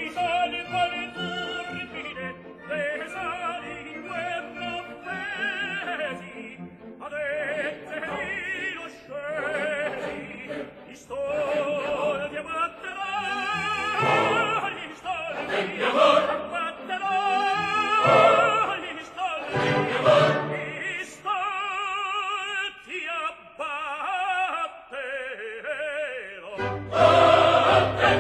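Operatic tenor singing an aria with wide vibrato over orchestra, in a live stage recording. Near the end the full orchestra and chorus come in louder.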